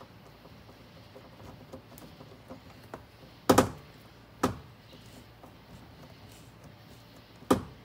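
Light handling clicks as hands work a small screw into a door card on a car door, with three sharp knocks against the door panel: a quick double about three and a half seconds in, another a second later, and a last one near the end.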